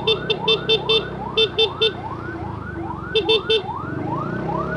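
Ambulance siren sounding in quick rising sweeps, about three a second, with a horn beeped over it in quick strings of three to five beeps, the loudest sounds here.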